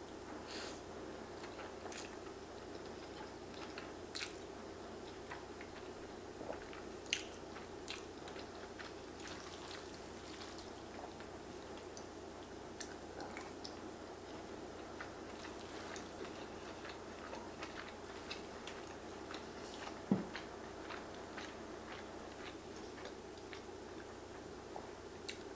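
A person quietly chewing a mouthful of noodles, with scattered small mouth clicks and smacks; one sharper click comes about twenty seconds in. A steady faint hum runs underneath.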